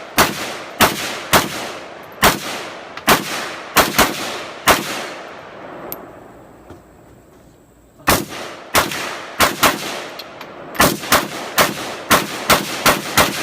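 Rifle fired in quick single shots. About eight shots come roughly half a second to a second apart, each with a ringing echo. After a pause of about three seconds, a faster string of a dozen or more shots follows, some only a fraction of a second apart.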